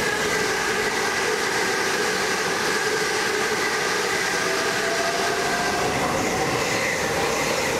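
Electric passenger train running through a station at speed: a steady rush of wheels on rail with several steady whining tones over it, and one tone rising slowly near the end.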